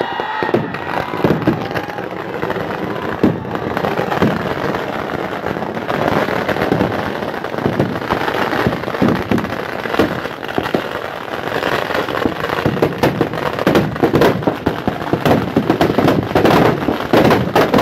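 Firecrackers packed inside a burning Ravan effigy going off in a rapid, continuous string of cracks and bangs, growing denser and louder near the end as the effigy bursts apart.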